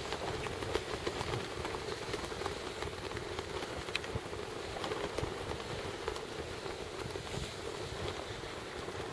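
Wind buffeting the microphone: a steady, rumbling noise with a few faint clicks.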